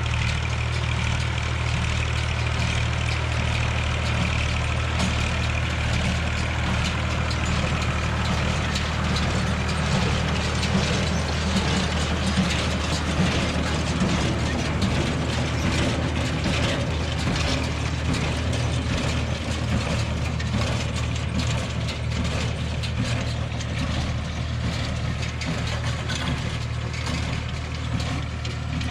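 Massey Ferguson 135 tractor engine running steadily while it drives a Massey Ferguson 12 small square baler. The baler's mechanism adds frequent clacking and knocking that grows busier about ten seconds in.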